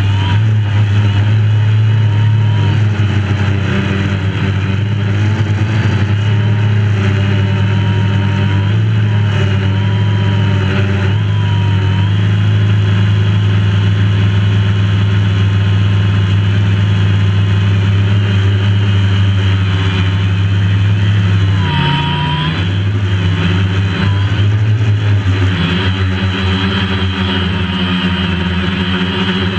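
DJI Phantom quadcopter's electric motors and propellers, picked up by the GoPro mounted on it, giving a loud, steady hum whose pitch wavers and briefly shifts about three-quarters of the way through.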